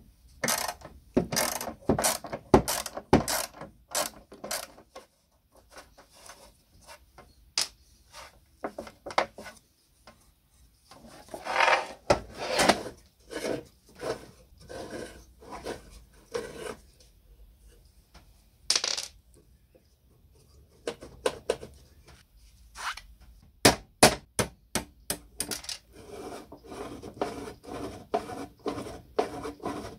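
Hand tools working the nuts on a rusty hand-cranked seed drill's iron gears: a socket, a wrench and pliers click and clink against the metal in irregular clusters of sharp sounds.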